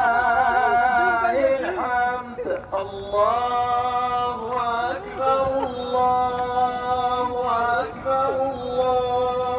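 A man singing long, held notes that slide from one pitch to the next, as in a slow song.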